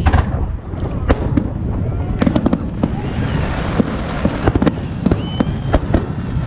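Aerial fireworks display: many sharp bangs and cracks from bursting shells in quick, irregular succession over a continuous low booming rumble.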